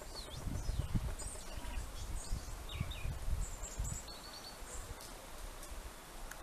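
European robin singing: a loose string of short, high, thin warbling notes and quick slurs, most of them in the first four seconds. A gusty low rumble runs underneath.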